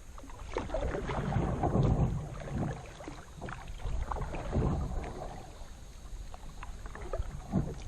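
Kayak being paddled: paddle strokes swishing and splashing in the water in irregular swells, with a few short knocks against the hull.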